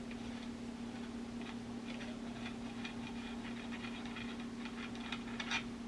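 Quick small metallic clicks and taps of M1 Garand rifle parts being handled during disassembly, thickest in the second half with the loudest click near the end, over a steady low electrical hum.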